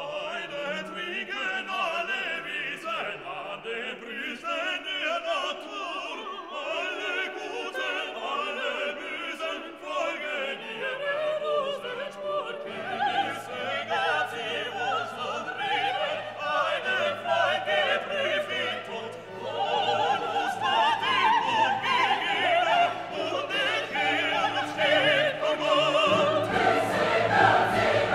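Classical music with orchestra and singing voices, operatic or choral in style, swelling louder about two-thirds of the way through.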